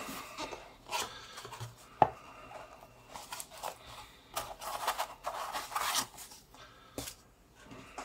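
Cardboard box and foam packing being handled as a box is unpacked: light scraping and rubbing, a sharp knock about two seconds in, a longer stretch of rubbing and scraping in the middle as the foam sheet comes out, and a click near the end.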